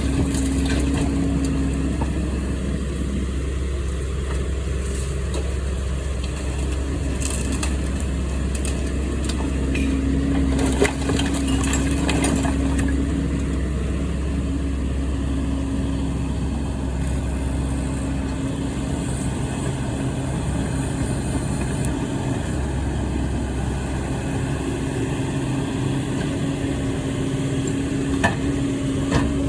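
A heavy machine's engine running steadily, with a few sharp cracks and crunches of wood breaking as a building is torn down.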